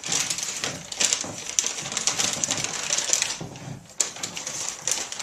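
Pleated paper rustling and crinkling as it is handled and pressed into shape, with many small crackles and a sharper click about four seconds in.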